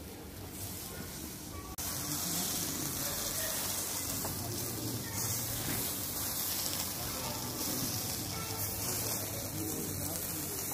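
Steady sizzling hiss of minced-meat kebabs cooking on a grill. About two seconds in, the sound jumps abruptly louder and brighter.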